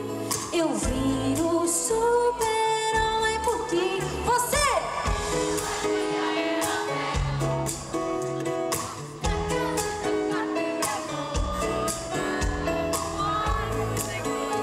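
A woman singing a pop song live with her band, her voice sliding between long held notes over a steady bass beat.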